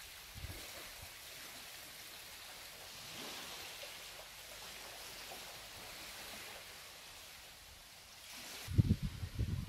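Steady soft wash of outdoor air and distant surf, with wind gusts buffeting the microphone near the end.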